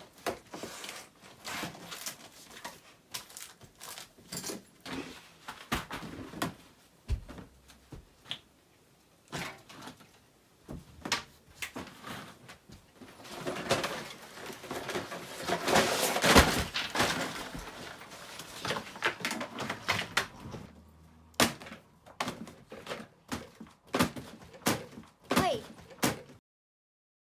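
Rummaging: an uneven run of knocks, bumps and rustling as things are handled and moved about, with a longer, louder stretch of rustling about halfway through. The sound cuts off suddenly near the end.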